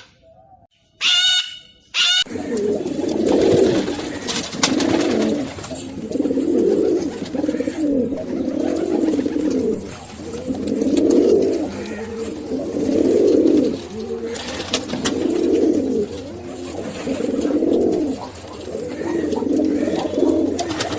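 Pigeons cooing: low coos repeated every couple of seconds, beginning about two seconds in after a short high-pitched call.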